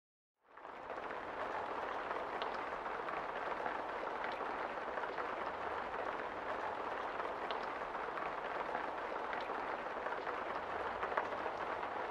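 Steady rain falling on a window, with a few faint ticks of single drops. It fades in about half a second in.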